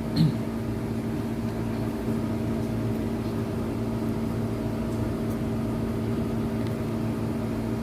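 Steady machine hum with a few held tones, even in level throughout.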